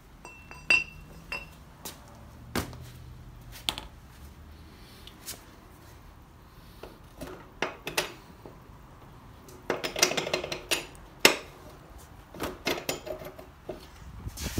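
Scattered metal clinks and knocks of steel parts being handled at a motorcycle's rear swingarm, where the axle has just come out and a steel rod sits in its place. A ringing clink comes about a second in, and the knocks bunch together around ten to eleven seconds in.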